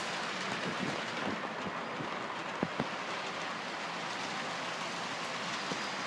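Model train running on the layout: a steady rushing hiss with a few light clicks of wheels over the track, two sharper clicks close together a little before the middle.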